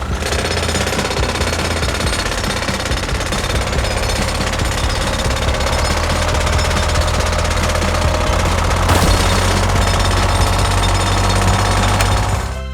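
Loud, steady, rapid mechanical hammering that cuts off just before the end.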